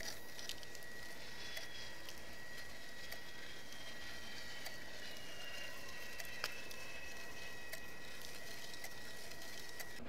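Dusty carbon char and small chunks trickling and pattering out of a tilted pyrolysis reactor drum into a foil tray, with scattered light ticks and one sharper tick past the middle. A faint steady high-pitched tone runs underneath.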